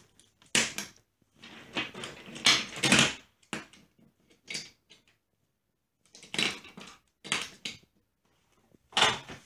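Wooden toy trains clacking and rattling on a wooden track and against each other as a small child pushes and handles them, in irregular spells of clatter with a pause of about a second near the middle.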